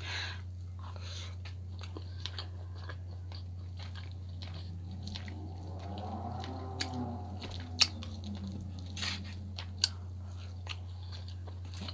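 Close-up eating sounds: chewing baked salmon and vegetables, with wet mouth clicks and smacks, two sharper clicks near the eighth and tenth seconds. A steady low hum runs underneath.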